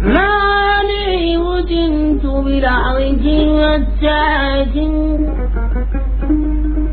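A solo voice singing long, ornamented notes in a Middle Eastern style, sliding up into the first note and wavering between pitches.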